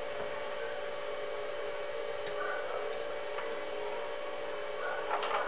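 A steady hum, with faint clicks and taps of hands fitting a small plastic part and a short cluster of taps near the end.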